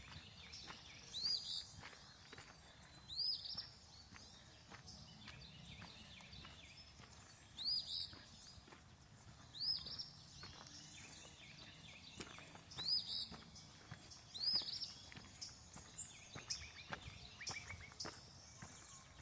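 A small bird repeating a short, high, arched call about every two seconds, six times, with a quick falling run of notes from another bird near the end. Faint footsteps and a soft steady background of outdoor noise run underneath.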